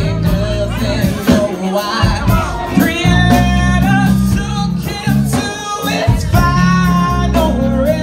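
Live amplified singing into a microphone over music accompaniment with a sustained bass line, a cover of a 1990s R&B song.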